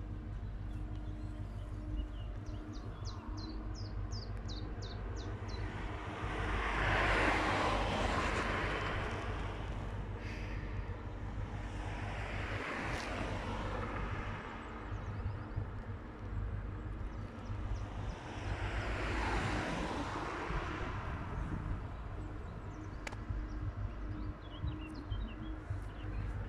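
Cars passing on the road one after another, three passes spread over the stretch, the first the loudest, each swelling and fading away. A small bird chirps in quick runs near the start and again near the end.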